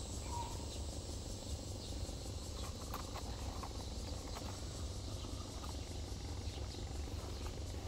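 Insects chirring steadily in a high, even drone, over a low steady rumble, with a few faint clicks about three seconds in.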